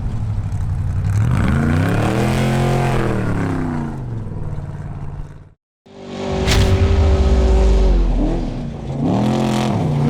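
Off-road race vehicle engine revving, its pitch climbing and falling away twice, with the sound breaking off abruptly a little past halfway and picking up again a moment later.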